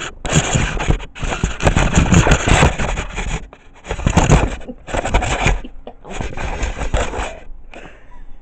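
Loud scraping and rubbing right on the phone's microphone, in several bursts of half a second to two seconds with short breaks, dying down near the end: a cat's fur and face pressing and rubbing against the phone.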